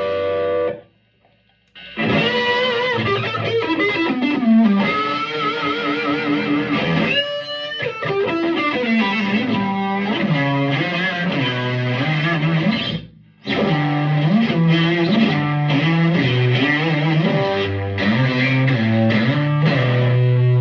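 Electric guitar played through the tweed channel of a Vintage Sound Amp (VSA), lightly overdriven: single-note lines with bends and vibrato mixed with chords. It stops briefly about a second in and again about two-thirds of the way through, and ends on a held chord.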